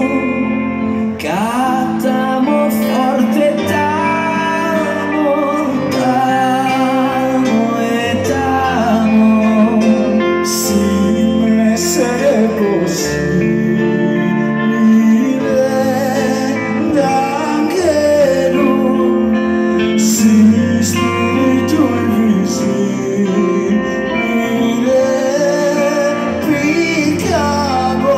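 Live band playing a song: a man singing over keyboards and electric guitars, with cymbal strokes.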